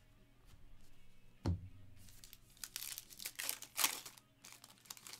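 A single knock on the table about a second and a half in, then a foil trading-card pack wrapper crinkling and tearing as it is ripped open for about two seconds.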